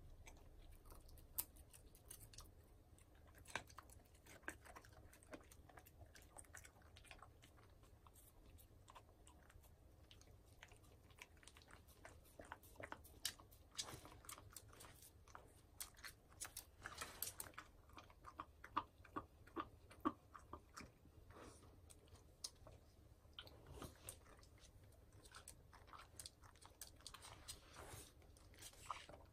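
A Shiba Inu licking food off a wooden cutting board and chewing, making faint wet tongue laps and mouth smacks. The clicks come irregularly and are busiest in the middle.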